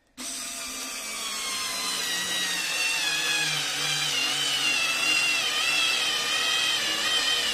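Parkside PAS D5 4 V cordless screwdriver driving a 5x50 mm screw into fir wood. The motor and gearbox whine starts about a fraction of a second in and runs on under load. The pitch sinks over the first few seconds as the screw bites deeper, then holds with slight wavering.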